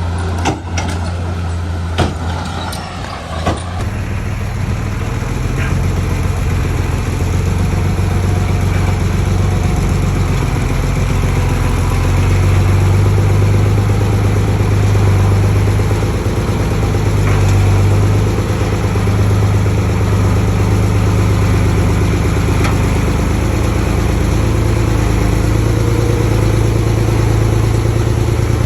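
Heavy diesel engine of earthmoving machinery running steadily with a deep hum, with a few sharp knocks in the first few seconds.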